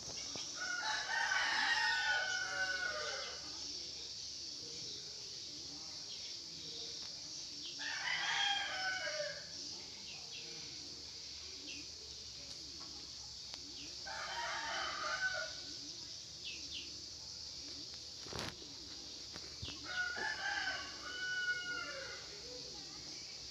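A bird calling four times, each call about two seconds long and about six seconds apart, over a steady high insect hum.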